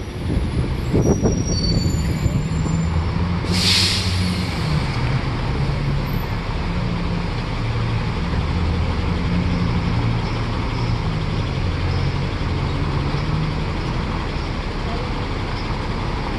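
Double-decker tour bus engine running as the bus drives, heard from the open upper deck, with a short hiss of the air brakes about three and a half seconds in.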